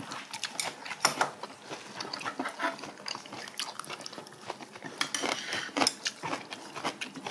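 Metal tongs and chopsticks clicking and scraping against dishes and a metal serving tray of braised cod, in many short irregular taps, with a denser scraping patch about five seconds in.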